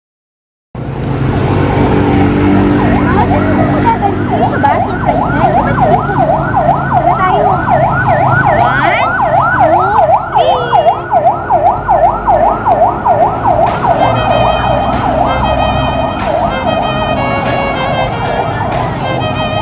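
A siren giving a rapid rise-and-fall yelp, about two to three sweeps a second, over a steady low background. Near the end, shorter repeated higher tones join in.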